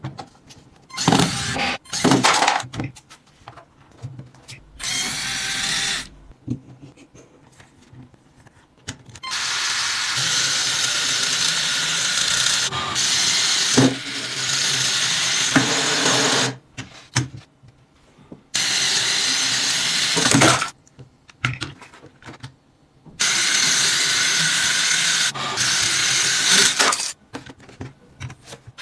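Electric motor and plastic gears of a motorised LEGO Technic car whirring in several stretches of a few seconds as it drives. Between the runs come short clicks and knocks of plastic parts being handled.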